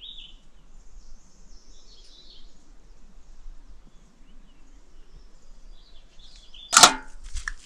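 Faint bird chirps over a quiet outdoor background. Near the end comes a single loud, sharp knock with a short ring, then a few small clicks.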